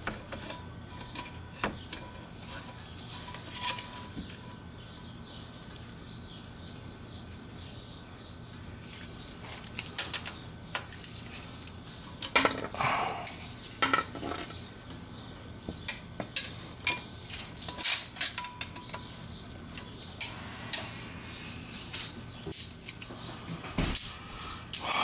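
Hand tools and metal parts clinking and clanking as they are handled, in scattered knocks with busier clusters in the middle and near the end, over a steady low hum.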